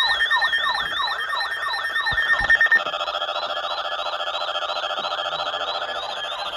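Electronic weather-alert siren tone: rapid yelping pitch sweeps, about two and a half a second, over a steady high tone. About three seconds in, the steady tone drops out and lower steady tones take over while the sweeps continue.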